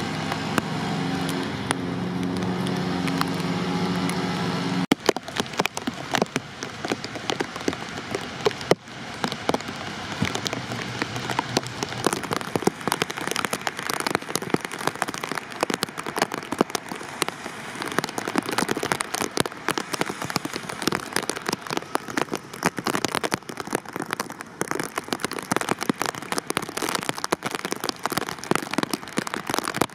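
Rain falling on a hard surface: a dense, continuous spatter of sharp drops. For the first five seconds a vehicle engine idles with a steady low hum, which stops abruptly about five seconds in.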